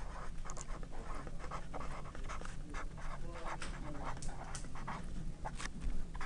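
A felt-tip marker writing words in quick, irregular short strokes on a white writing surface, over a steady low hum.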